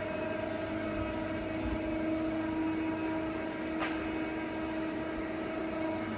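Mazak SQT CNC lathe running with a steady mechanical hum and whine from its drives, with one short click a little past halfway.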